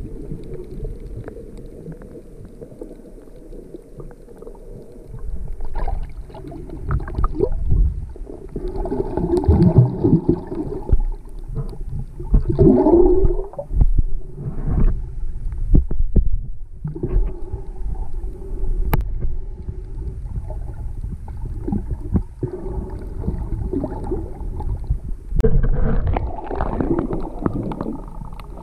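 Water sloshing and gurgling as heard by an underwater camera: a muffled low rumble that swells and fades, with bubbling and scattered small clicks.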